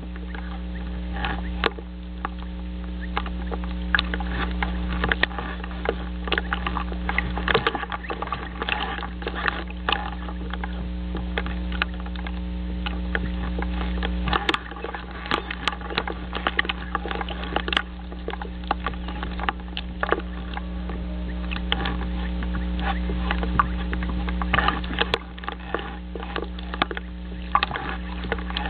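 Steady electrical hum from the nest camera's audio feed, dipping in level a few times, with irregular crackling and clicking throughout. No loon calls can be picked out.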